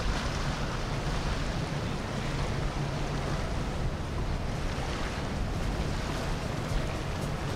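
Motorboat running on the water, a steady low engine hum under the rush of water, with wind buffeting the microphone.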